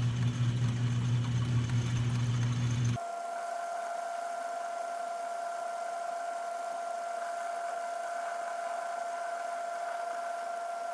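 Vintage Atlas 12-inch metal lathe running under power while turning a steel part, with a steady low hum. About three seconds in the hum cuts out abruptly and the sound drops in level, leaving a steady high whine.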